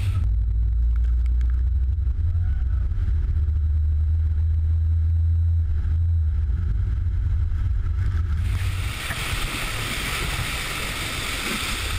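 A steady low rumble. About eight and a half seconds in, a loud rush of churning, spraying floodwater comes in as the towed wakeboard cuts through the flooded lane.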